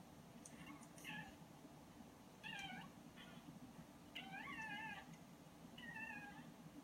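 Newborn puppies squeaking and mewling faintly through a laptop's speaker: a handful of short, wavering high cries, the longest about four seconds in.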